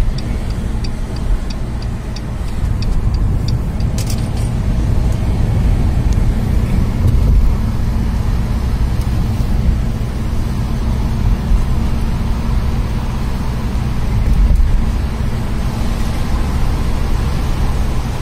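Road and engine noise of a moving car heard inside the cabin: a steady low rumble. A run of light, evenly spaced ticks, about three or four a second, fades out after the first few seconds, and a sharp click comes about four seconds in.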